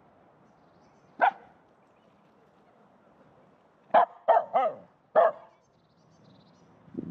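Finnish Spitz barking in excitement at a frozen pond: a single bark about a second in, then a quick run of four barks about four seconds in.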